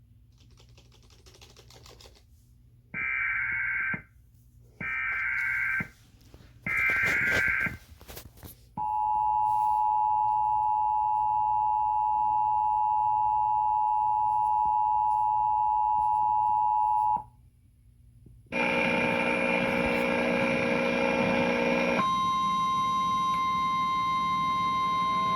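Emergency Alert System tones: three short bursts of screechy digital SAME header data, then the two-tone attention signal held for about eight seconds. After a brief pause comes a harsher buzzing alarm tone, which changes a few seconds later to a steady single-pitch alert tone.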